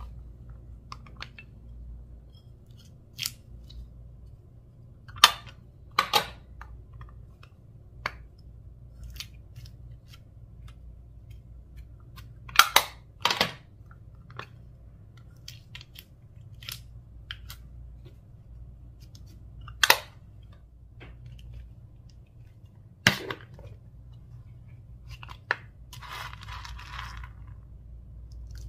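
Slime being squished and mixed with mini balls, giving scattered sharp pops and clicks every few seconds and a brief crackly stretch near the end.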